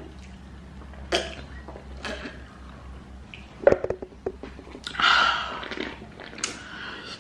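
Close mouth sounds of people drinking from paper soft-drink cups: sips and swallows, a sharp gulp near the middle, and a loud breathy exhale about five seconds in.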